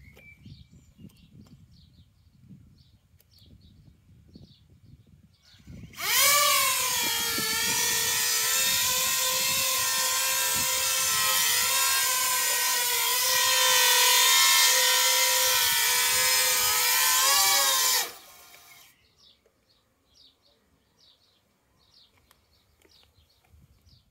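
Coaxial copter's electric motors and propellers spinning up with a rising whine, running with a steady high, multi-toned whine for about twelve seconds, then cutting off abruptly.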